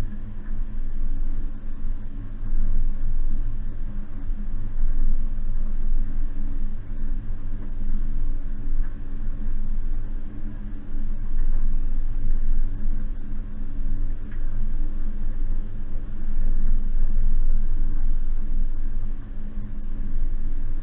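Suzuki Jimny's 1.5-litre four-cylinder petrol engine running at low, fairly steady revs while driving off-road, with a constant low rumble. The sound swells and eases several times as the load on the engine changes.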